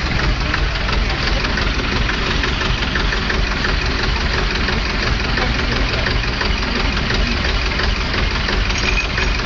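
Tractor engine running steadily at low speed.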